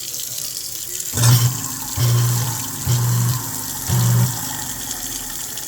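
Water running from the faucet into the kitchen sink and down the drain, a steady hiss. Over it come four short low hums, each about half a second, spaced roughly a second apart.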